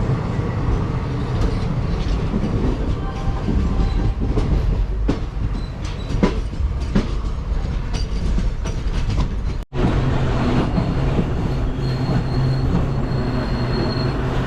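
West Coast Express passenger train running, heard from inside the coach: a heavy low rumble with sharp wheel clicks over the rail joints. The sound breaks off for an instant about ten seconds in, then goes on as a steady hum with a thin, high whine.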